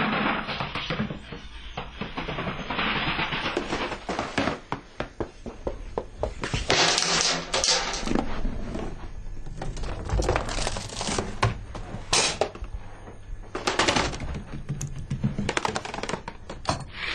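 A long chain of dominoes toppling: a fast, unbroken clatter of tiles knocking over one another, swelling into louder spells in the middle and near the end.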